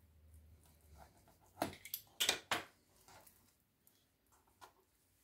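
Faint handling sounds of a pizza-wheel cutter and soft dough on a plastic cutting board. A quick run of sharp clicks and scrapes comes about two seconds in, then a few soft taps.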